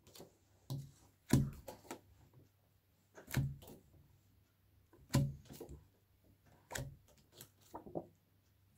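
Stiff paper flash cards being handled and swapped at a table: short soft taps and slaps, one every second or two, as each card is lifted from the stack and put back.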